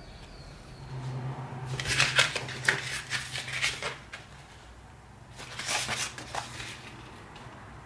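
Small hard objects clicking and scraping on a tabletop in two bursts, a couple of seconds of rapid clicks and then a shorter burst about a second and a half later.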